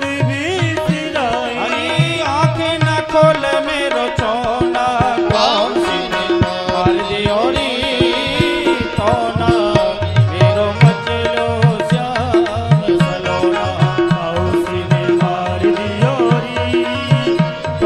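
Devotional bhajan music: tabla playing a steady rhythm, its low bass-drum strokes bending in pitch, under held drone tones and a wavering melody line.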